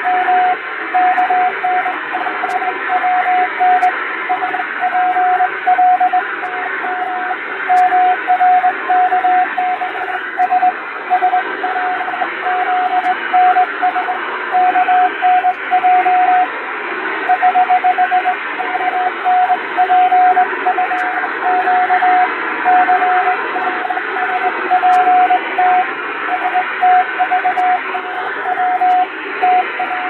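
Morse code (CW) radiotelegraph signal: a single beeping tone keyed on and off in dots and dashes, sending five-letter code groups. It sits over shortwave static hiss that swells and fades, simulating a received shortwave telegram with noise and fading.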